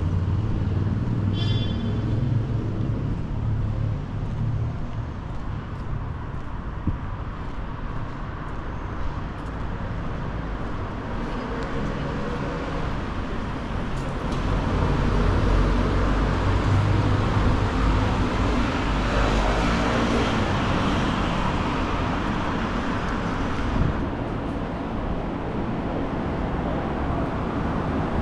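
City street traffic: cars passing on the avenue, a steady road noise that swells as vehicles go by in the middle, with a brief high squeal about a second and a half in.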